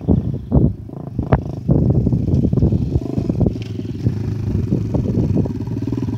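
Small dirt bike engine running as the bike rides closer, settling into a steady note from about two seconds in. A few sharp thumps come in the first second and a half.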